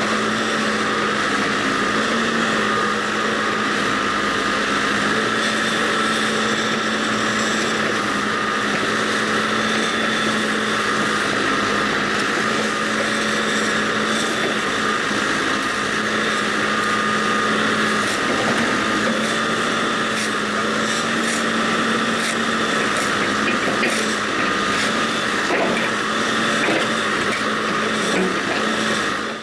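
Backhoe engine running steadily under work, with a few faint knocks and clatters in the second half.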